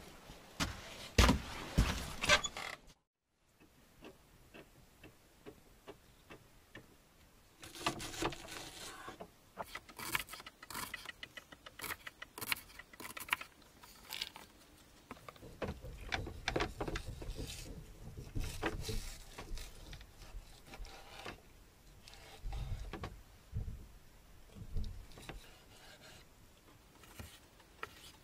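Kitchen knife cutting onion and meat on a wooden cutting board: irregular sharp taps of the blade on the board, with a few loud knocks near the start.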